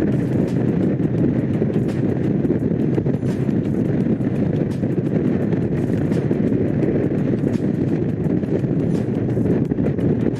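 Honda CX500's liquid-cooled V-twin engine running steadily while the motorcycle is ridden, with wind noise over the microphone.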